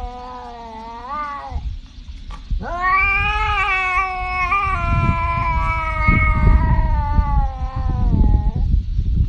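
Tabby cat yowling: a call that bends upward and ends about a second and a half in, then after a short pause one long drawn-out yowl of about six seconds. A low rumble runs underneath, loudest in the second half.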